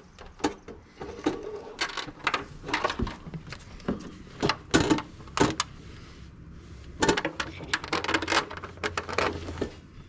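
Corrugated plastic split-loom tubing and wiring harness being handled and pressed into place by hand: irregular clicks and rustles.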